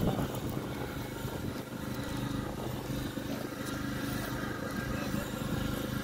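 An engine running steadily, a low, even hum, over outdoor background noise.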